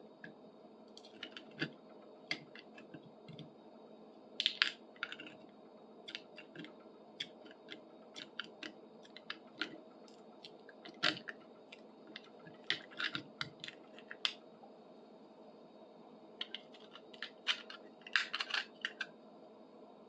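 Irregular small clicks, scrapes and crunches of hand-tool work digging a stuck wooden handle stub out of a metal tool socket, in loose clusters with pauses between, over a steady faint hum.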